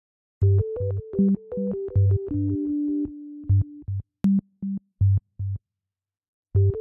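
Electronic theme music: short, staccato synthesizer-keyboard notes over a deep bass, in a steady rhythm that thins out near the end.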